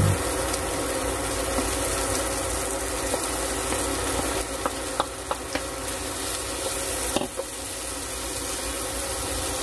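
Pork cubes sizzling in a nonstick frying pan with sautéed onion, garlic and tomato as they are stirred in with a wooden spatula. Steady frying hiss, with a few light knocks of the utensil on the pan around the middle.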